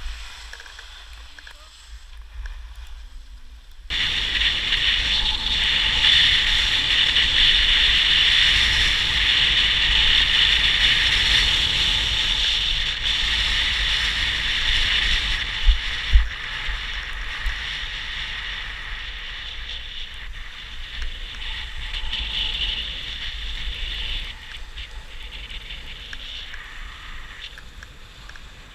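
Skis sliding and scraping over hard-packed snow on a downhill run, with wind rumbling on the microphone. The noise sets in suddenly about four seconds in, holds steady, and eases off near the end, with two brief knocks around the middle.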